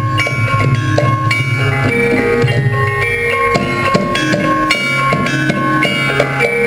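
Javanese gamelan music: struck metallophone keys ringing out a melody of held notes over drumming.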